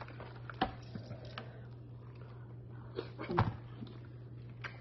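Scattered small clicks and cracks of boiled lobster shell being pulled apart and picked at by hand, with a louder knock and crack about three and a half seconds in, over a steady low hum.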